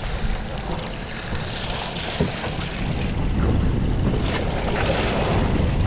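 Wind buffeting the microphone on an open boat at sea, over the wash of water along the hull, growing louder about three seconds in.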